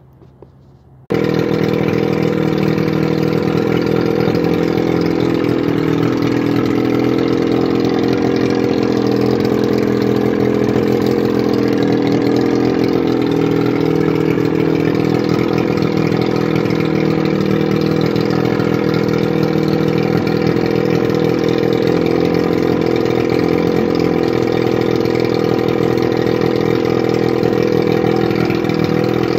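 1981 Evinrude 35 HP two-cylinder two-stroke outboard running steadily, cutting in suddenly about a second in. It runs well, a sign of a healthy powerhead.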